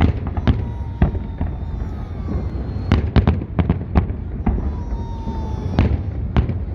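Fireworks salute: a rapid, irregular string of sharp shell bursts, thickest about three seconds in, over a steady low rumble.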